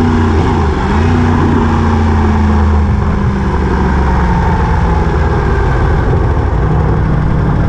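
A vehicle engine running steadily and loudly, its pitch dipping and recovering briefly about half a second in.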